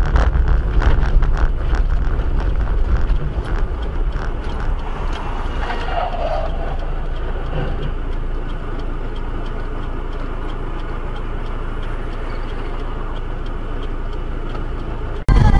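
Motor vehicle noise, engine and road rumble, with scattered knocks in the first few seconds before it settles into a steady rumble.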